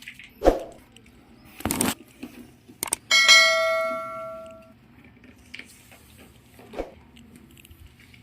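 A few knocks and a scrape, then a metal object is struck and rings out, fading over about a second and a half.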